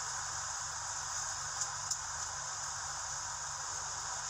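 Rain falling steadily, a constant hiss, with two faint ticks a little under two seconds in.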